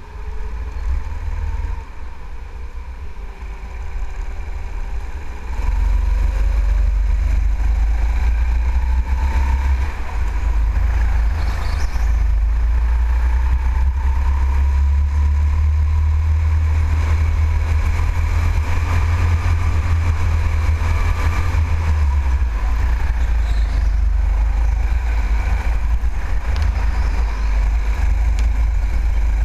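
Go-kart motor running at racing speed, its pitch rising and falling as the kart slows and speeds up through the corners. Under it runs a heavy low rumble that gets louder about five seconds in.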